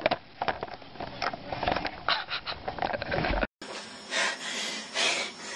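Scattered clicks and knocks of a handheld camera being moved about, then, after a sudden cut, a run of short hissing breaths through the nose, about one a second.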